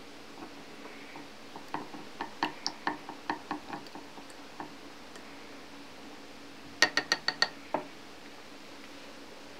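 Wooden chopsticks beating egg in a small bowl, clicking against the bowl a few times a second, then a quick run of five sharp, louder knocks on the bowl about seven seconds in and one more just after.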